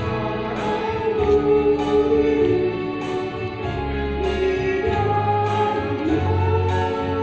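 Women's choir singing in several parts, holding long notes, over instrumental accompaniment with a low bass line.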